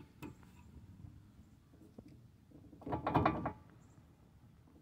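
Hand handling steel recovery hardware: light clicks and knocks against the steel bumper and the receiver-hitch shackle mount, with one louder half-second clunk-and-rattle about three seconds in.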